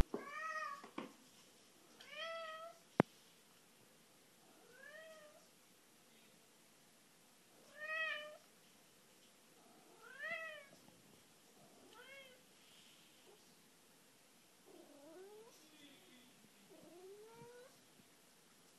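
Ragdoll cat meowing about eight times, a call every second or two, each meow rising then falling in pitch, the last two lower and drawn out: calling for its owner. A single sharp click about three seconds in.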